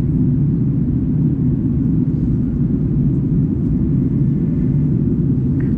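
Steady low rumble of an Airbus A330-300's cabin in flight, from its engines and the rushing airflow, heard from a window seat over the wing.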